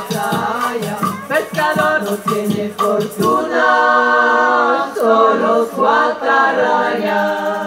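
A group of women's voices sings a cumbia chorus over rhythmic percussion. About three and a half seconds in, the percussion stops and the voices hold one long chord, then sing a last phrase unaccompanied.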